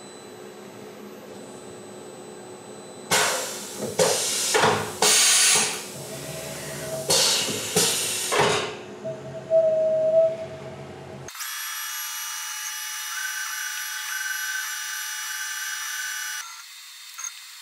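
Tormach 1100MX CNC mill running a dry-run program with the coolant off. Several short, loud bursts of noise come in the first half, then from about eleven seconds in a steady high-pitched whine.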